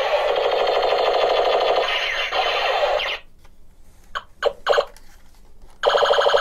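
Electronic machine-gun sound effect from a battery-powered Ben 10 toy gun, a rapid rattle through its small speaker. It stops about three seconds in, a few short bursts follow, and the rattle starts again near the end.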